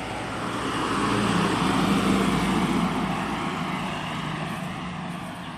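A motor vehicle passing by, its engine and road noise swelling to a peak about two seconds in and then slowly fading.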